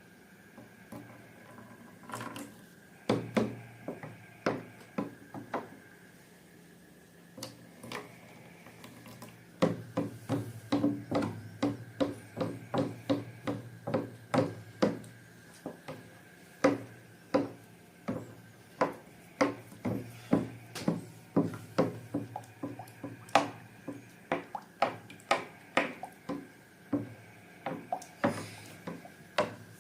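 Slime being mixed and squished: a run of sharp, sticky clicks and pops, a few at first, then two or three a second from about ten seconds in.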